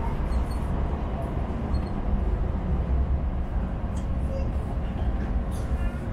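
Sheffield Supertram running along its rails, heard from inside the carriage: a steady low rumble of wheels and running gear. A faint steady whine joins in about halfway through.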